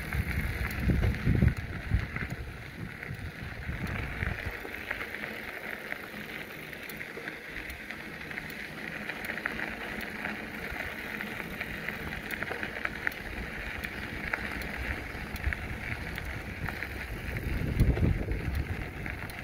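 Bicycle rolling along a trail: steady tyre and riding noise with scattered small clicks, and wind buffeting the microphone in the first couple of seconds and again near the end.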